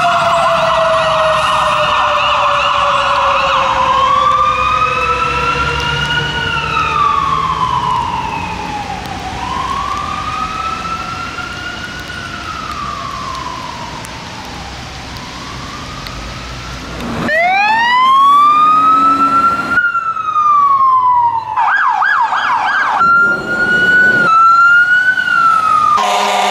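Fire truck sirens wailing, rising and falling about every three seconds and fading as the trucks drive away, with a lower siren tone winding steadily down over the first several seconds. About 17 s in, an abrupt cut brings louder sirens: a steep rising wail, then a fast warble and other changing siren patterns.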